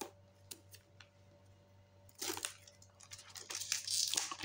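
Scissors snipping a few times at the plastic shrink wrap of a phone box, then the wrap crinkling and tearing as it is pulled off, growing louder near the end.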